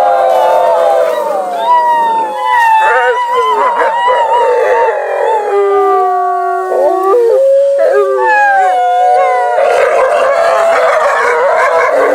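Gray wolves howling together in a chorus, several long wavering howls overlapping at different pitches. From about ten seconds in, rough growling mixes in with the howls.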